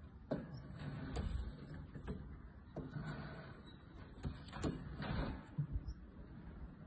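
Irregular knocks and rattles of a wooden stick against a wire cage's bars, about six of them spread over the first five seconds, over a low rumble.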